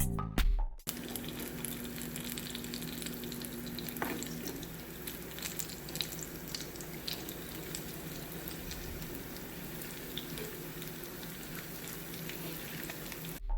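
Food frying in hot oil in a pan: a steady sizzle with scattered small crackles and pops.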